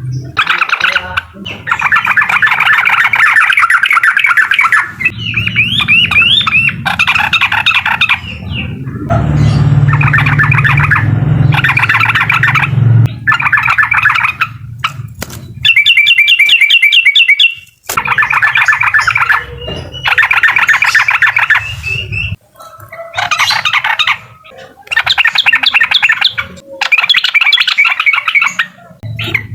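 Yellow-vented bulbul (trucukan) singing its loud 'uklik' chatter: bursts of rapid trilled notes, each a second or two long, repeated with short gaps, with a low hum underneath for a few seconds near the middle.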